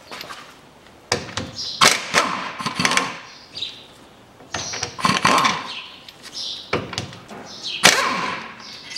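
A steel underbody crossmember on a Peugeot 407 being worked loose and pulled out from under the car: a string of metallic clanks and knocks, some of them ringing briefly.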